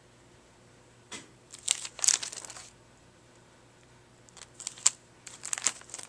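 Clear plastic sleeves of a ring-binder album crinkling as its pages are turned, in two bouts: one about a second in and another from about four seconds in.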